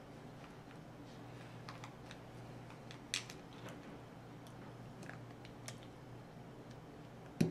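Small clicks and taps of a hand tool working the pins and parts of a Spyderco Endura 4 folding knife's plastic handle scale during disassembly. The clicks are scattered, with a sharper one about three seconds in and the loudest knock near the end, over a faint steady hum.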